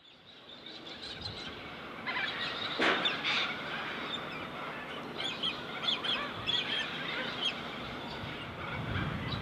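Birds calling repeatedly in short calls over a steady background hiss, with one louder burst about three seconds in; the sound fades in at the start.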